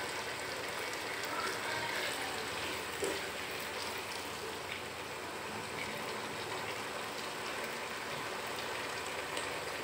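Arvi (taro root) curry sizzling steadily in a nonstick pan on the stove, with a silicone spatula stirring through the thick gravy and giving a few light scrapes.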